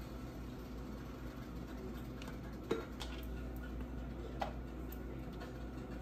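A few light clicks and taps of metal kitchen tongs and food being set down on a plate, the sharpest a little under three seconds in, over a steady low hum.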